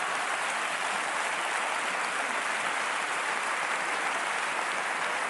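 Theatre audience applauding steadily after a punchline.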